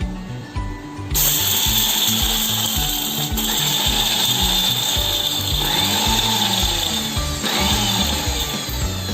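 Electric mixer grinder switching on about a second in and running loudly with a high whine, grinding garlic, pepper, cumin and small onions into a paste; its sound shifts twice. Background music plays throughout.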